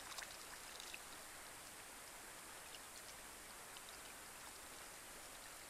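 Light rain falling on a pond: a faint, steady hiss with scattered drop ticks, bunched in the first second.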